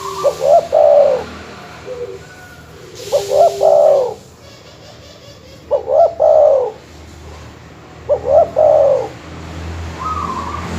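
Dove cooing: four rhythmic cooing phrases, each just under a second long and repeated about every two and a half seconds, with a short fainter note near the end. It is a recorded master call of the kind used to train or lure doves.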